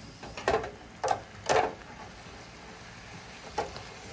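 Potato chips frying in the oil of an electric deep fryer: a steady sizzle, broken by four sharp metal clicks from the wire fry basket and tongs, the loudest about a second and a half in.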